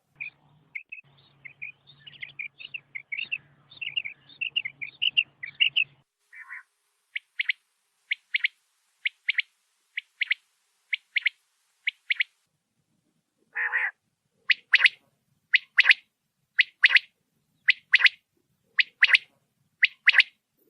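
Quail calling: a quick run of high chirps for the first few seconds, then short sharp calls spaced out, one longer lower note, and then double notes repeated about once a second.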